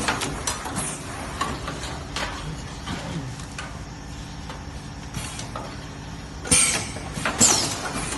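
Pneumatic flip-flop making machine working, with scattered light clicks and clatter from its fixture, then two loud bursts of compressed air about a second apart near the end, over steady workshop machine noise.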